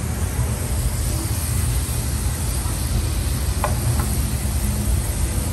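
Chicken stock heating in a frying pan, hissing steadily over a low, steady background rumble. Two light knocks of a wooden spoon against the pan come a little over three and a half seconds in.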